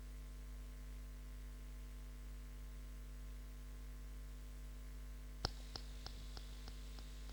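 Steady electrical mains hum. About five seconds in comes a quick run of six sharp clicks, about three a second, each fainter than the last.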